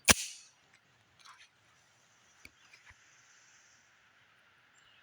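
A single .45 ACP shot from a Tisas M1911 pistol about a tenth of a second in, fired at water jugs, with a short ring-out. Then faint outdoor ambience with a few small clicks.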